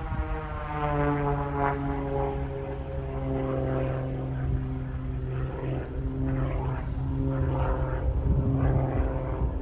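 Aerobatic propeller plane, a Zivko Edge 540, with its piston engine and propeller droning as it flies a display. The pitch drops in the first second as it passes, then holds nearly steady.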